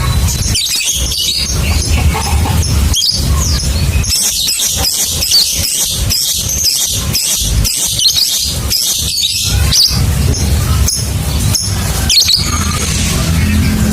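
Lovebirds chattering in long, fast, high-pitched 'ngekek' trills and chirps, over a low steady hum.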